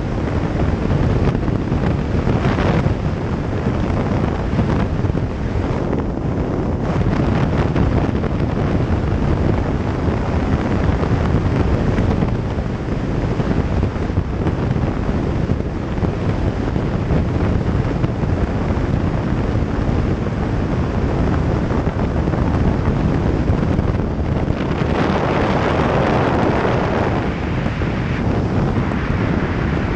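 Wind buffeting the microphone of a motorcycle riding at road speed, with the bike's engine running steadily underneath. The wind swells for a couple of seconds near the end.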